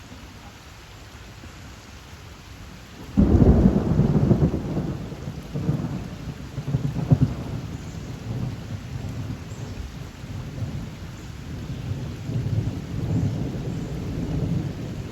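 Rushing water of a flash-flood surge of storm runoff in a creek. About three seconds in, a loud, uneven low rumble sets in and carries on.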